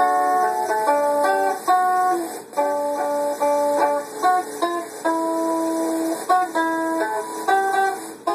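Acoustic guitar played solo with no singing, an instrumental passage of picked melody notes stepping from one to the next over the chords.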